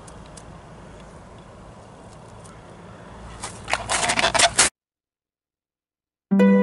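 Someone walking through snowy brush: footsteps crunching in snow and twigs scraping and snapping against them, quiet at first, then a burst of crackling about three and a half seconds in. The sound cuts off dead, and soft harp music begins near the end.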